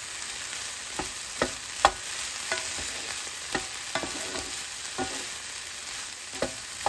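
Fried rice sizzling in a nonstick frying pan as a wooden spatula stirs and tosses it, the spatula knocking against the pan at irregular moments, the loudest about two seconds in.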